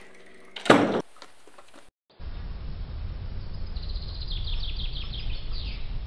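A short, loud noise burst under a second in. After a brief drop to silence comes a steady low rumbling outdoor background, over which a bird gives a quick series of high chirps for about two seconds.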